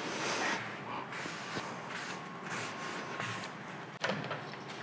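Cloth rag wiping the oily cast-iron ways of a metal lathe's cross slide: scratchy rubbing in irregular strokes, broken off abruptly about four seconds in by a short knock.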